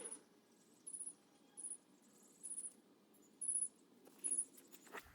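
Six short, very high-pitched chirps, each a quick run of a few pulses, repeating about once every 0.8 seconds over faint background hiss.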